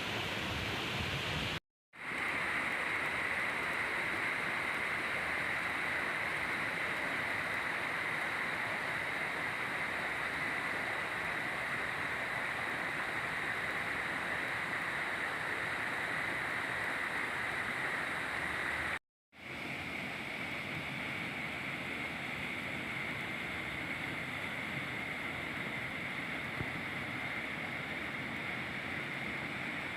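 Waterfall rushing: a steady noise of falling water, cut off twice by a moment of silence, about two seconds in and again about two-thirds of the way through.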